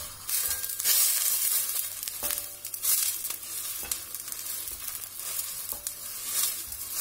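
Wooden spoon stirring and scraping around a stainless steel pan of water, oil and chopped garlic heating toward the boil, in repeated strokes over a sizzling hiss.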